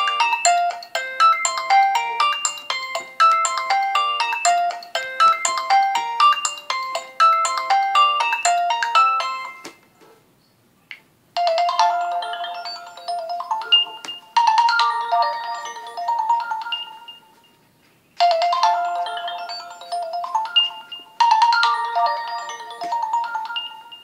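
LG K10 LTE stock ringtones. A melody of quick, bright notes ends about ten seconds in. After a short pause a second ringtone starts, playing its phrase twice with a brief break between.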